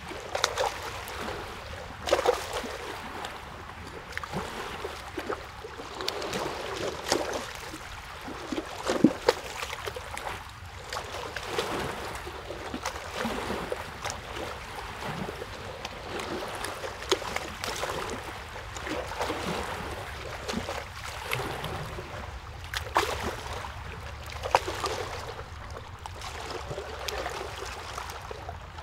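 Water lapping and trickling, with many small irregular splashes.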